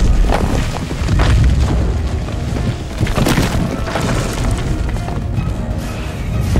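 Film sound effects of sandstone rock collapsing after missile strikes: heavy low rumbling with several crashes of breaking rock, the biggest about three seconds in, under film score music.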